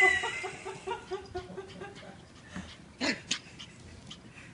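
Small Yorkshire terriers vocalising during play: a quick run of short, high yips that dies away over the first second and a half, then a few scattered sharper yaps, the loudest about three seconds in.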